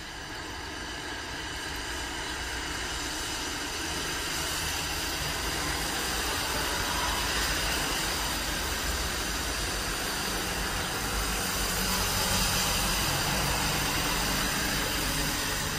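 Rain and traffic on a wet city street: a steady hiss of rain and tyres on wet asphalt. A heavy truck's engine hum comes in during the second half.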